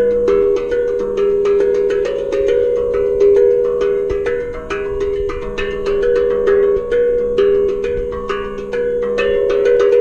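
Kaizen steel tongue drum played with the bare hands: quick strikes, several a second, each pitched note ringing on and overlapping the next, making a flowing melody over sustained middle notes.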